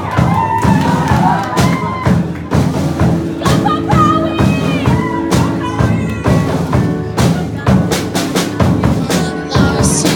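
Music with a steady drum beat over sustained bass and chords, with a wavering melodic line in the first couple of seconds.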